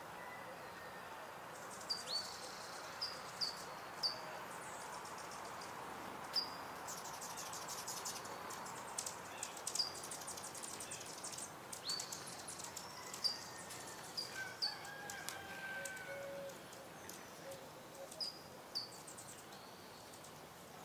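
Small bubbling fountain in a ceramic birdbath running steadily, with Anna's hummingbirds giving a dozen or so sharp, high chip notes and bursts of rapid chattering clicks, busiest through the middle.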